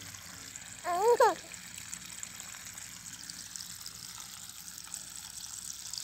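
Water trickling steadily along a shallow dug garden ditch. About a second in, a short voiced utterance briefly rises above it.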